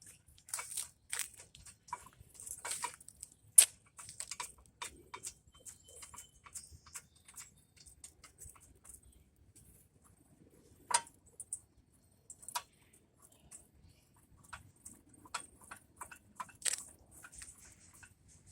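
Scattered light metal clicks and taps at an irregular pace, from handling and starting the caliper bracket bolts on a car's front brake, with a few sharper clicks in between.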